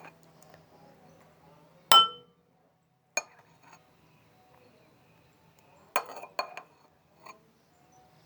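Kitchen utensils and containers clinking: a few separate sharp clinks. The loudest comes about two seconds in with a brief ring, another follows about a second later, and a quick cluster of several comes near six seconds.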